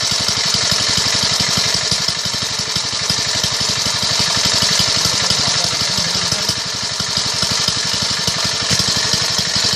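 A small engine running steadily at an even pace, its rapid regular beat unchanging throughout.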